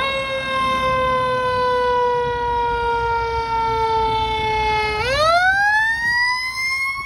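Fire engine siren wailing. It climbs sharply at the start, sinks slowly in pitch for about five seconds, then climbs again near the end.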